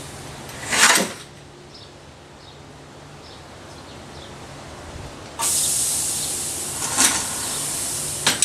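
Air cylinder of a pneumatic scissor hinge prop cycling, with compressed air hissing out through its exhaust mufflers. A short hiss comes about a second in, then a longer hiss starts suddenly past five seconds and slowly fades. Two sharp knocks come near the end.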